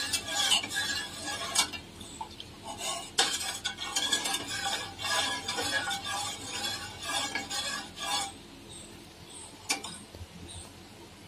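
Metal spoon stirring custard in a metal saucepan on the stove, scraping around the pan with light clinks against its side. The stirring grows quieter and sparser after about eight seconds.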